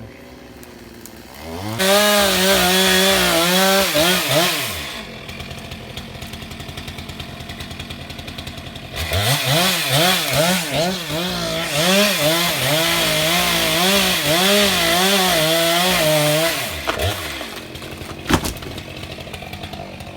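Chainsaw revved to full throttle twice, for about three seconds from two seconds in and for about seven seconds from nine seconds in. Its pitch wavers up and down as it cuts, and it falls back to a low idle in between and near the end. A sharp knock comes near the end.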